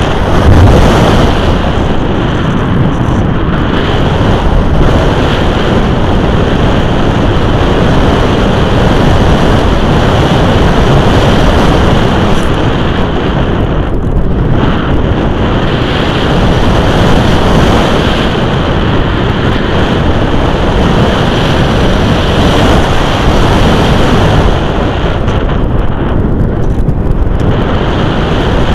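Loud, steady rush of airflow buffeting the microphone of a camera mounted on a radio-controlled glider in flight, its hiss thinning briefly about halfway through and again near the end.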